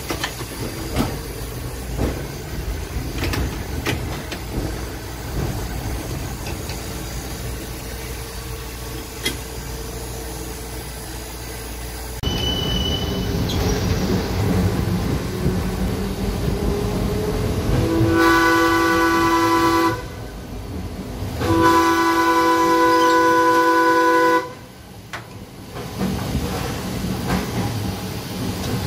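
Heritage-style electric streetcar running on its rails with a steady rumble and clicks of the wheels over the track. About two-thirds of the way through, its horn sounds two long blasts, the second a little longer.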